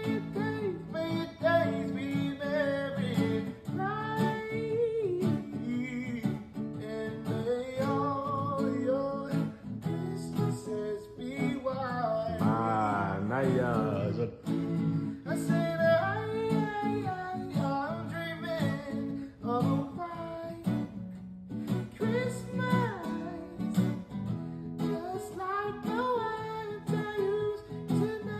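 Background music: an acoustic-guitar pop song with a singing voice over strummed chords.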